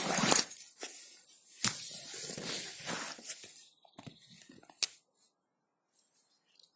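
A Victorinox Rangerwood 55 pocket-knife blade whittling a rotten stick: a few irregular scraping shaving strokes and a sharp click. The sound drops off to near quiet about five seconds in.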